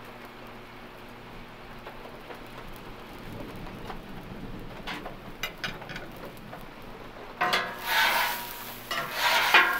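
Steady rain falling, then from about seven seconds in a metal spatula scraping across the steel top of a Blackstone flat-top griddle in a few loud strokes.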